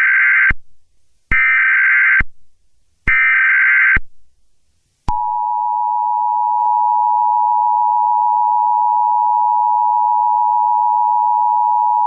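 Emergency Alert System SAME header: three bursts of warbling digital data tones, each just under a second long, the first already under way. About five seconds in, the steady two-tone EAS attention signal (853 and 960 Hz together) begins.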